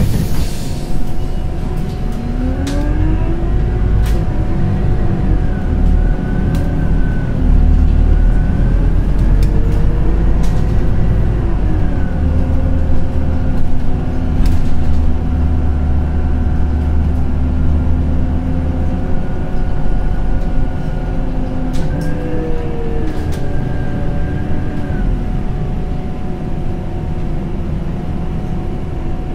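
Scania Citywide LFA articulated bus, compressed-natural-gas engine and driveline, heard from inside the cabin as it drives. Over a heavy low rumble, a whine rises in pitch about two seconds in as the bus speeds up, holds fairly steady while it cruises, then falls a little after twenty seconds as it slows. There are occasional clicks and rattles.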